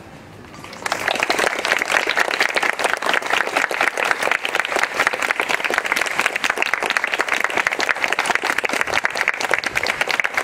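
Audience applauding: a short hush, then many people clapping at once, starting suddenly about a second in and carrying on steadily.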